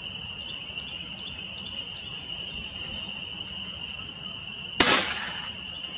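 Steady high-pitched insect chirring, then nearly five seconds in a single sharp shot from an FX Crown .22 PCP air rifle firing a slug, its report fading over about half a second.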